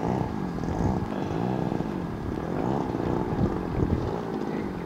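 Radio-controlled model airplane's two-stroke gasoline engine and propeller running as the plane taxis, its pitch rising and falling throughout. Some wind on the microphone.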